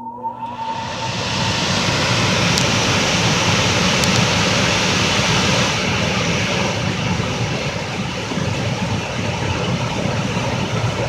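A forced-air gas furnace's fan motor spinning up over the first couple of seconds, then running steadily with a loud rush of moving air.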